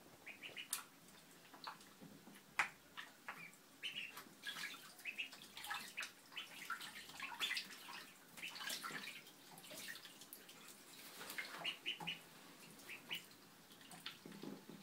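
Four-week-old ducklings splashing and bathing in a bathtub: a run of quick, irregular splashes and drips of water, busiest through the middle.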